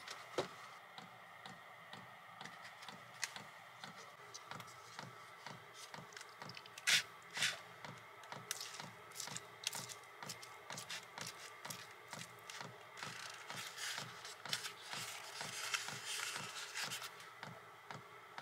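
Faint scraping and clicking of a utensil cutting fried fish on a soft tortilla and of the wrap being handled. Two louder knocks come about seven seconds in.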